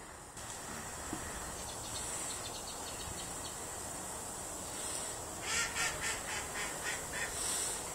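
A bird calling in a quick series of about eight calls, starting about five and a half seconds in.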